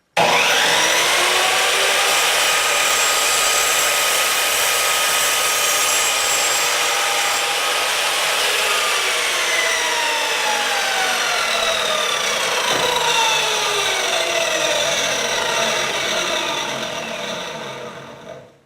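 Power tool cutting through 3/4 inch PVC pipe at a marked line. It starts suddenly and runs steadily with a whine, which drops in pitch over the second half and dies away near the end.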